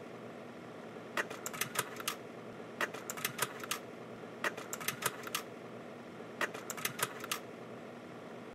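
A steady hum with irregular runs of sharp mechanical clicks, a few quick clicks at a time, in groups about a second or two apart.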